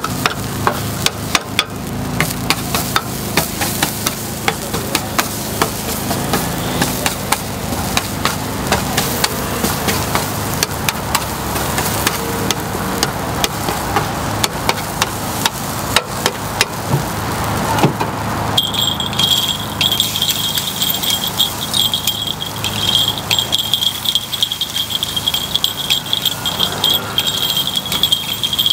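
Metal picks clicking and tapping rapidly and irregularly against a takoyaki grill pan as the balls are turned in their moulds. About two-thirds of the way through, a steady high-pitched tone joins in and continues.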